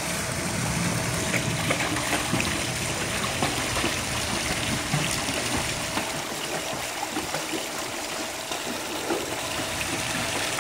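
Swimming pool water lapping and splashing lightly as a child paddles in an inflatable swim ring.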